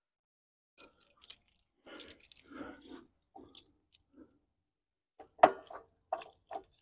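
Keys and a red trailer coupler hitch lock being handled and unlocked: soft rustling and small clicks, then a sharp click about five and a half seconds in, followed by a few lighter clicks.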